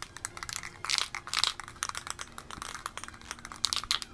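An aerosol spray-paint can being handled and shaken, its mixing ball clicking and rattling inside in quick, irregular clusters of sharp clicks.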